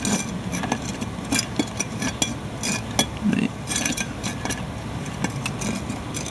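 Lid of a glass-jar HHO generator being screwed on and tightened by hand: a run of small clicks, taps and scrapes against the glass, over a steady low background rumble.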